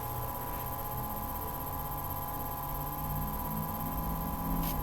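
A steady electrical hum with several faint, unchanging tones, and nothing else happening.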